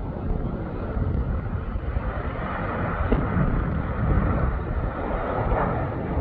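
Jet airliner on landing approach: a steady rush of jet engine noise that grows a little louder through the middle, over a low rumble.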